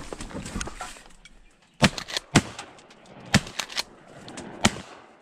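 Shotguns fired by duck hunters at incoming ducks: four loud, sharp blasts starting about two seconds in, the first three quickly one after another and the last near the end, with a few fainter cracks between them.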